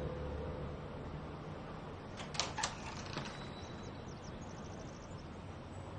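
A few sharp clicks or knocks, close together, a little over two seconds in, over a faint low hum.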